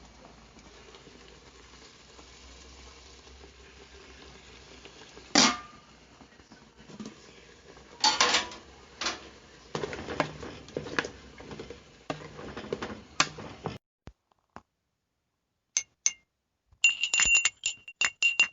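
Dishes, glassware and cutlery being handled, giving sharp clinks and knocks: a single loud clink, then a busier run of clatter over several seconds. After a short break of silence comes a quick run of sharp clicks with a high ringing tone.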